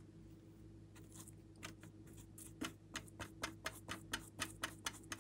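Paintbrush dabbing and scrubbing in a plastic watercolour palette's paint pan: a run of light ticks at about four a second, starting about a second in.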